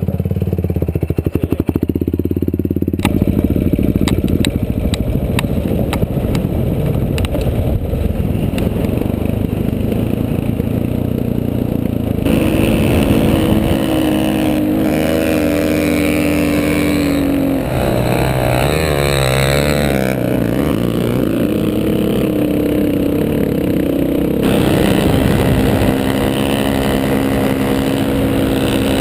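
Off-road vehicle engine running hard and revving, its pitch rising and falling, heard from on board with rattling and clatter over rough ground. The sound changes abruptly a few times where clips are cut together.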